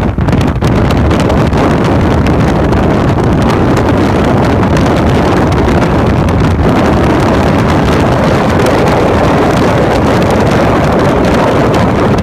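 Loud, steady din of wind and hail pelting a car driving through a thunderstorm's hail core, with many small sharp hits running together.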